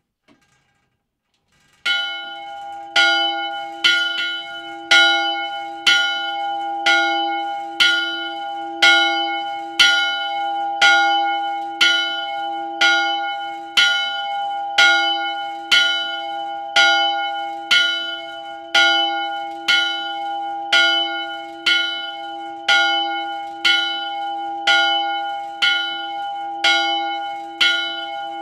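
A church bell starts ringing about two seconds in and goes on in a steady rhythm, about one clapper strike a second, each stroke ringing on into the next. The bell is swung by an electric drive, a chain wheel on its headstock.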